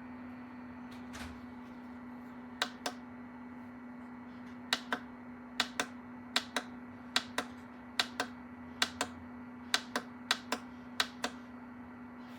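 Small mini dehumidifier running with a steady hum, overlaid from about two and a half seconds in by a run of sharp double clicks, roughly one pair a second.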